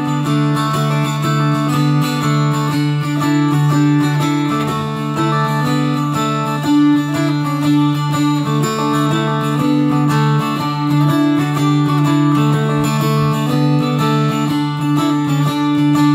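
Appalachian mountain dulcimer played solo, a plucked melody over steady low drone strings.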